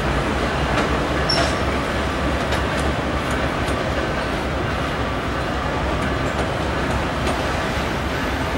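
Freight train led by GE diesel-electric locomotives running past, a steady low diesel engine rumble mixed with wheel and rail noise. A brief high squeak comes about a second in.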